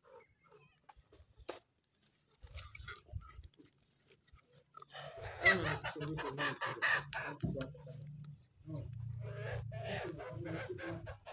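Farm animals calling: a quick run of short, pitched calls starts about halfway through, and more follow near the end over a steady low hum.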